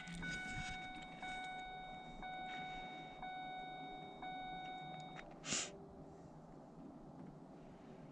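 A steady high electronic tone with overtones, heard after the truck's ignition is switched on, stops about five seconds in; a brief hiss follows shortly after.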